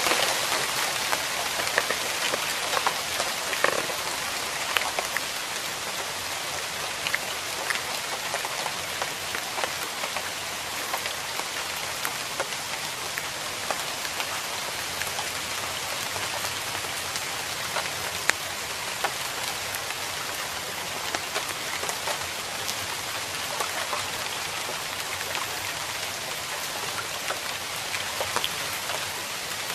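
Water splashing and pattering: a steady hiss with scattered sharper splashes.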